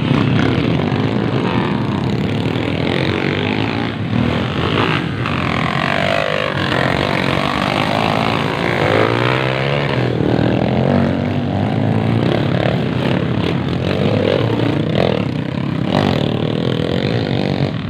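Several dirt bike engines running together, revving up and down so their pitches rise and fall and overlap, heaviest in the middle stretch.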